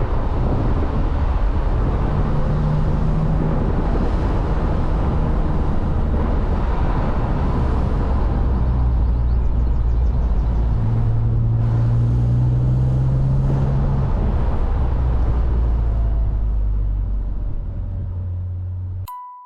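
BMW Z3 M Roadster's 3.2-litre inline-six running at a steady pitch for long stretches, with wind and road noise. It fades out near the end and gives way to a short, steady electronic beep.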